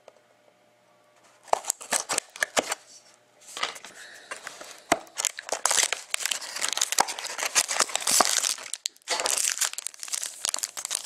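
Plastic shrink-wrap being slit and torn off a hockey card box, crackling and crinkling. It starts after a second and a half of quiet and grows denser as the wrap is peeled away and a foil card pack is handled.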